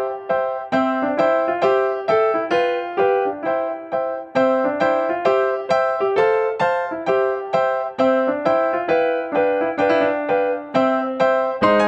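Instrumental background music: a keyboard melody of short, evenly paced notes, a few notes a second, with no singing.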